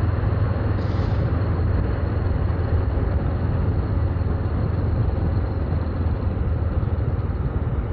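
Steady wind rush on a helmet or bike-mounted camera microphone over a Honda CBR500R's parallel-twin engine running at steady road speed.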